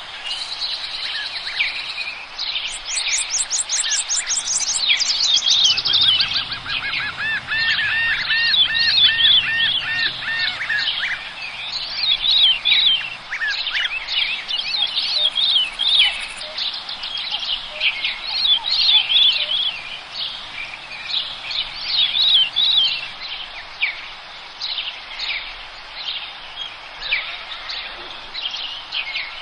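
Forest birdsong chorus: several birds chirping and whistling over one another. There is a fast high trill about three seconds in, then a run of repeated looping notes from about six to eleven seconds.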